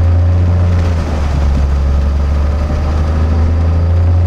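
Piper Cherokee Six's six-cylinder Lycoming engine and propeller running steadily during its first run-up after 22 years out of annual, heard from inside the cockpit, with a slight dip in loudness about a second in.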